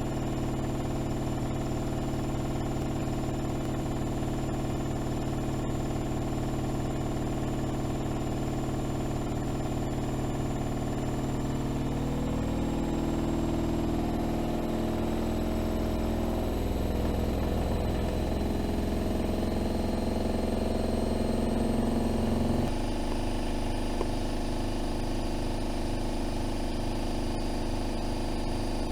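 AEG Öko-Lavamat 76730 washing machine running in its spin, a steady motor hum with a high whine that slowly rises in pitch. The tone shifts about halfway through and changes abruptly about 23 seconds in.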